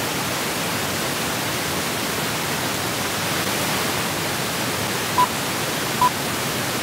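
Loud, steady white-noise hiss, played as a distraction for a listening exercise. Two short high beeps come near the end.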